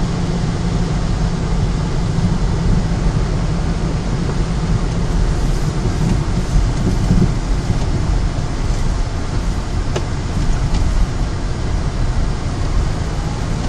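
Steady road noise inside a moving car's cabin: engine and tyres giving an even low rumble.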